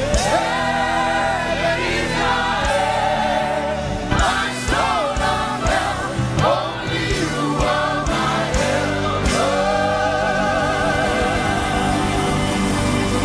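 Live gospel praise music: a choir singing long held lines with a wavering vibrato over instrumental accompaniment.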